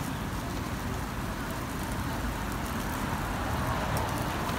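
Steady street-stall background noise: a low rumble with a hiss over it and a few faint clicks, with no single event standing out.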